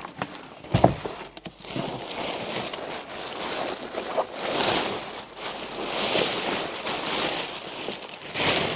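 Clear plastic wrapping crinkling and rustling as a fur coat is pulled out of it, in several swells, with a knock against the cardboard box about a second in.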